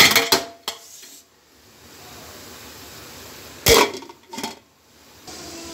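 A metal lid clattering against a steel cooking pot: a burst of clatter at the start and one sharp clank about three and a half seconds in, with a low steady hiss in between.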